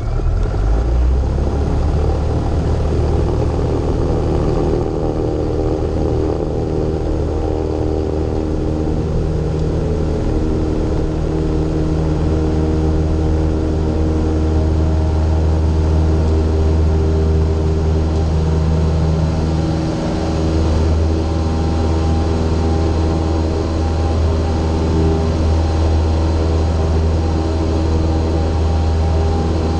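Single-engine light aircraft's piston engine and propeller running at takeoff power, a loud steady drone through the takeoff roll and into the climb.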